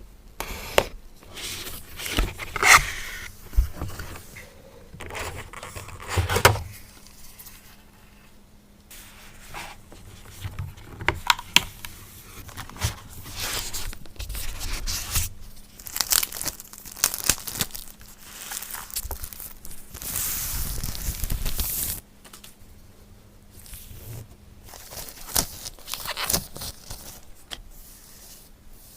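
Keyboard packaging being unboxed by hand: cardboard and plastic wrap handled with crinkling and tearing, among irregular taps and scrapes, and a longer two-second scraping noise about twenty seconds in.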